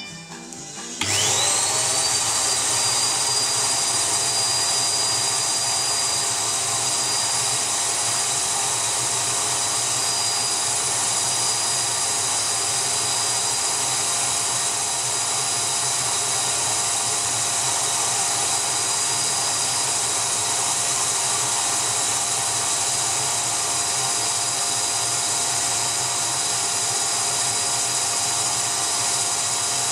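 Vacuum cleaner motor of a homemade record-cleaning machine starting about a second in with a rising whine, then running steadily as it draws the cleaning fluid off the record through the suction arm.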